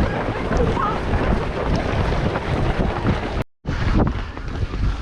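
Wind buffeting the microphone: a loud, continuous rumble, broken by a brief dead-silent gap about three and a half seconds in.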